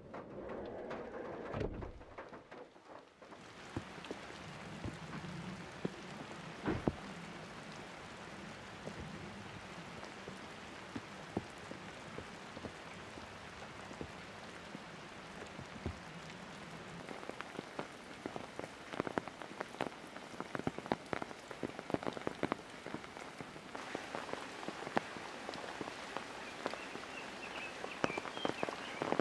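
Steady rain, with many single drops ticking sharply, and more of them in the second half. For the first three seconds it is quieter and muffled, heard from inside the van, with a low thump about two seconds in.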